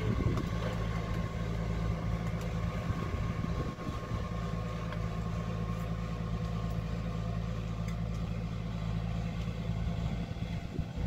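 An engine idling steadily, a low even hum, with a few faint clicks now and then.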